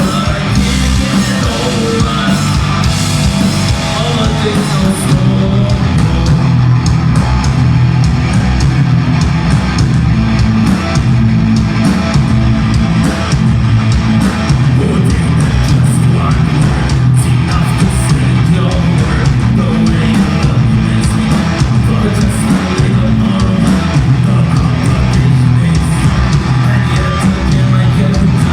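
Live heavy metal band playing loud, with distorted guitars, drums and a singing voice.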